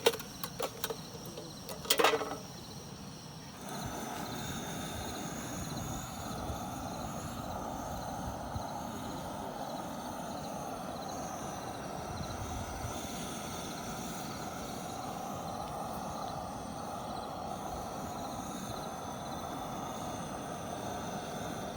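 A few sharp clicks and knocks, then a steady low rushing noise that starts about four seconds in and holds evenly, with crickets trilling steadily high above it.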